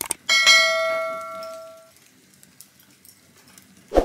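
A couple of quick clicks, then a bright bell ding that rings and fades out over about a second and a half: the notification-bell sound effect of a subscribe-button animation. A short, sharp knock comes near the end.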